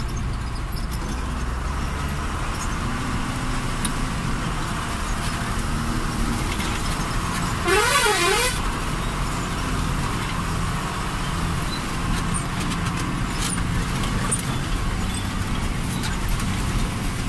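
Truck engine running steadily, heard from inside the cab, with one short warbling horn blast, its pitch swooping up and down, about eight seconds in.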